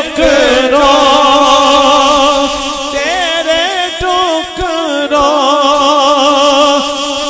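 A man singing a naat into a microphone, holding long melismatic notes with a wavering vibrato and starting new phrases about three seconds in and again after five seconds.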